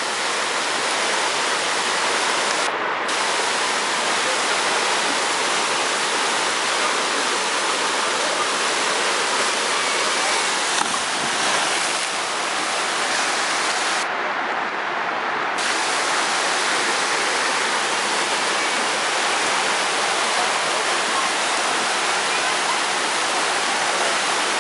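Waterfall rushing steadily: a continuous, even hiss of falling water.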